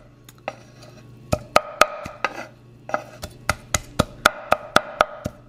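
Cleaver chopping cooked steak on a wooden cutting board: a quick run of sharp knocks on the wood, about four a second, with a short pause about halfway through.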